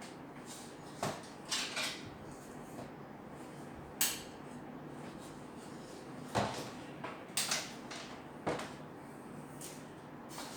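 Irregular clicks and clunks of parts and tools being handled while a washing machine's new timer is wired in, about eight sharp knocks spread through the stretch.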